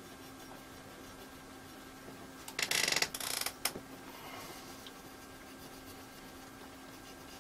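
Cotton swab soaked in WD-40 scrubbing the glass of a CRT around the anode cap, a brief hissing scrub of about a second roughly two and a half seconds in, ending in a small click. A faint steady hum sits underneath.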